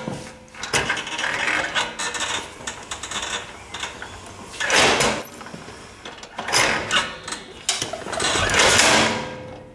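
Drive pulley and differential of a Wolf garden cart rattling and scraping in loud surges with sharp clicks between, the loudest near the middle and near the end. This is the knocking the owner traced to the belt pulley striking the differential.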